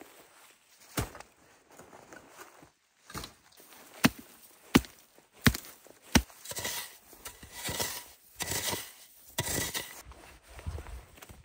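Small dry twigs snapped off a shrub by hand: a series of sharp cracks, about six, loudest and quickest between four and six seconds in, then bursts of rustling brush and snow.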